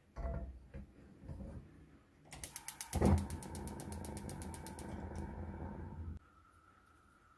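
A saucepan set down on a gas hob's cast-iron grate, then the gas burner's igniter clicking rapidly. The burner catches with a soft whoosh about three seconds in. The flame hisses steadily until it is turned down and goes much quieter near the end.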